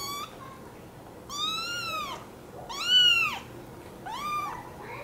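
American Curl kitten meowing: a brief call at the start, then three longer high-pitched meows, each rising and then falling in pitch. The middle one is the loudest.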